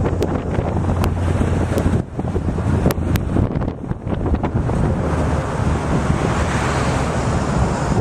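Wind buffeting the camera microphone: a loud, rumbling rush, with a brighter hiss swelling over the second half.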